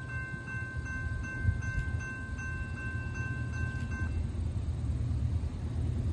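Railroad grade-crossing bell ringing, about two and a half strokes a second, then stopping about four seconds in, over a steady low rumble.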